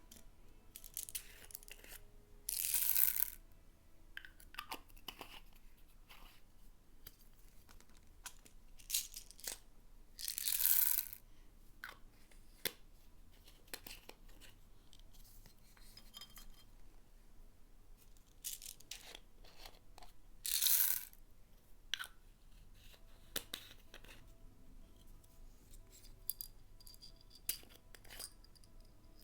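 Slime being kneaded and squished by hand, with many small sticky clicks and pops and three louder wet squelches roughly ten seconds apart.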